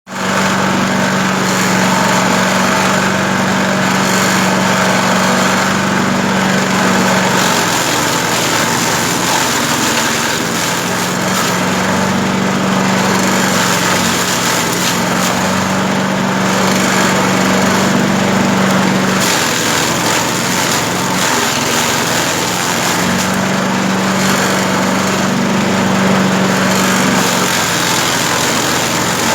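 Livestock-feed grass chopper running steadily, a loud continuous machine drone with a hum that strengthens and fades every few seconds.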